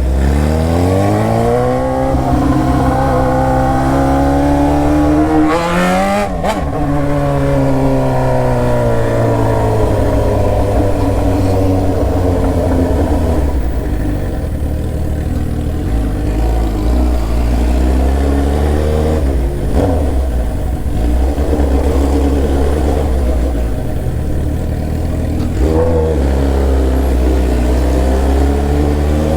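Inline-four sport motorcycle engine under way: it revs up with rising pitch for about six seconds, shifts up sharply, then eases off and falls to a steady lower note, picking up again briefly twice later on.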